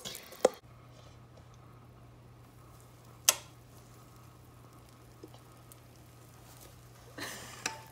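A metal spoon clinks against a bowl while stirring waffle batter for the first half-second. Then a quiet steady low hum, with one sharp click about three seconds in and a short hiss near the end.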